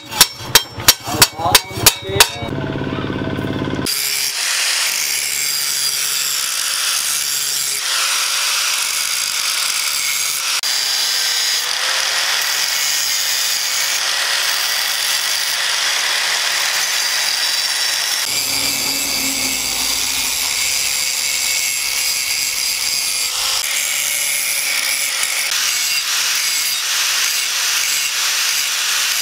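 A hand hammer strikes the steel blank on an anvil in a quick run of about eight blows over two seconds. Then an electric angle grinder with an abrasive disc grinds the edge of the rusty disc-plough steel in a steady, continuous run.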